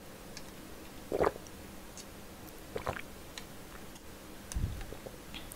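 A few faint, separate sips of cola through a curly plastic drinking straw, with small mouth sounds between them.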